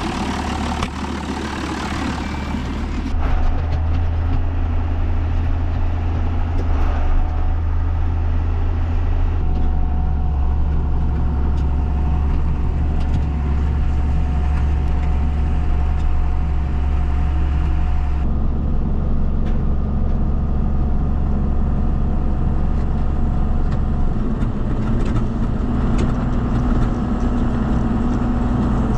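Tractor engine running steadily under load while pulling and unloading a forage box, a low drone whose pitch shifts a few times.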